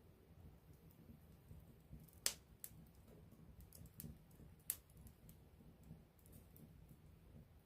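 Wood campfire burning quietly, a low steady rush of flame with scattered crackles; two sharp pops, about two seconds in and again near the middle, are the loudest.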